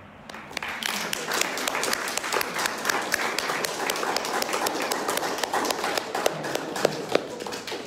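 Audience applauding: many hands clapping, building up a moment in and dying away at the very end, with a few louder single claps near the end.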